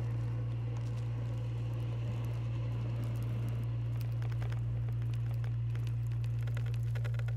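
A steady low drone held on one pitch, with faint crackles and ticks over it.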